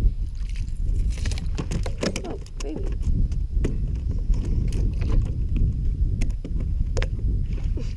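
Wind rumbling on the microphone, with scattered sharp clicks and knocks from an angler casting and reeling with a rod and reel on a bass boat's deck.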